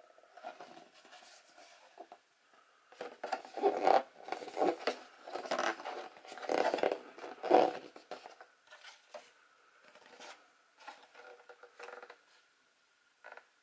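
Thick plastic RC truggy body shell being handled and flexed by hand, scraping and crinkling in bursts, loudest in the middle, with fainter rustles after.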